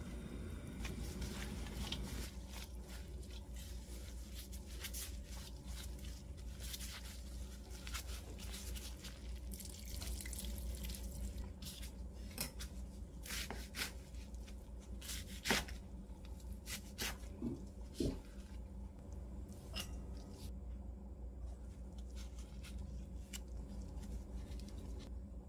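Water dripping and splashing as blanched chwinamul greens are rinsed and lifted out of cold water, then scattered sharp taps and clicks from handling the greens on a wooden cutting board, over a low steady hum.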